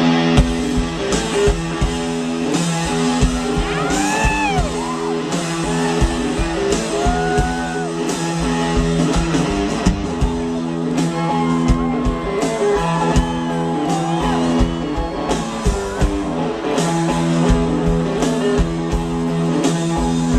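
Live rock band playing loud: a distorted electric guitar riff over steady drum hits, with a voice or lead line rising and falling above it at times.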